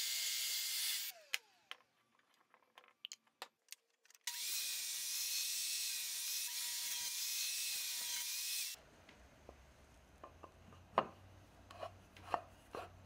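Table saw ripping square ash stock to width: a steady whine over cutting noise, once ending about a second in and again from about four to nine seconds in. In between and afterwards there are a few light knocks as the wood is handled.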